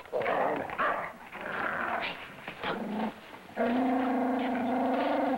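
A dog growling and snarling, followed for the last couple of seconds by one long, steady, slightly wavering cry.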